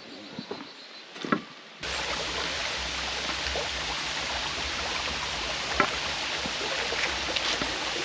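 Steady rush of creek water flowing over a rock ledge, cutting in suddenly about two seconds in; before it, a few faint knocks.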